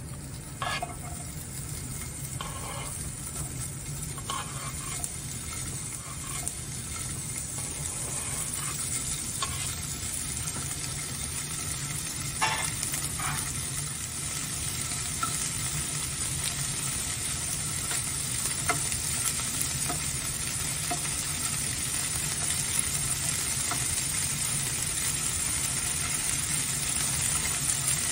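Sliced kielbasa sizzling in a hot nonstick frying pan, the sizzle growing steadily louder. Scattered light clicks as slices are dropped into the pan and moved about, several in the first few seconds and a few more later.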